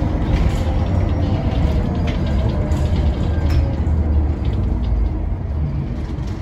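Scania K94UB bus's rear-mounted 9-litre five-cylinder DC9 turbo diesel and ZF automatic gearbox running as the bus drives, heard from inside the cabin, with a steady low rumble and a few light rattles. It gets a little quieter near the end.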